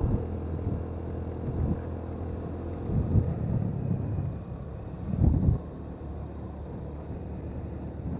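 Motorcycle engine running steadily while riding along a road, with low rumbling gusts of wind on the microphone about three and five seconds in.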